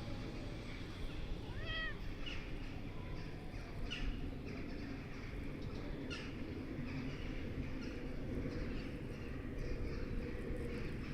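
A cat making a few short, soft meows: one clearer rising-and-falling call about two seconds in, then fainter short calls around four and six seconds, over a steady low rumble.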